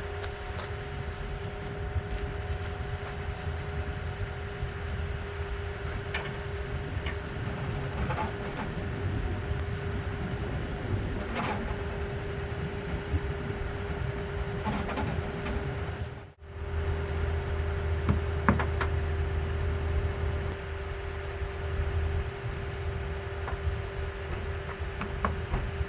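Pickup truck engine idling steadily, with scattered faint clicks and knocks over it; the sound breaks off abruptly for a moment about two-thirds of the way through and resumes.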